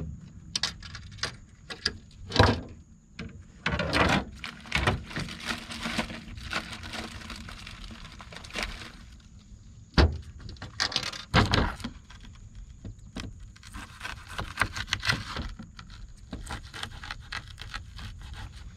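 Scattered knocks, clicks and rustling of bait and gear being handled on a boat's aluminum diamond-plate deck, with a few louder thumps, and a knife starting to cut a bait fish on a bait board near the end.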